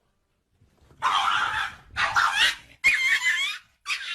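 A pet animal giving four short cries, about one a second, after a second of silence.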